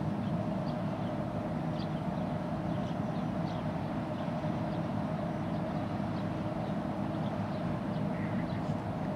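Steady low drone of a large container ship's engines as it passes close by, with a few held tones in the hum. Faint, short, high bird chirps come and go over it.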